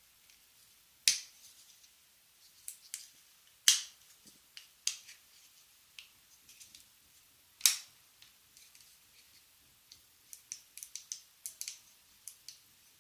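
Sharp clicks and taps of a small plastic car alarm key fob case being handled and fitted together. Three louder clicks come about one, three and a half and seven and a half seconds in, then a quick run of light clicks near the end.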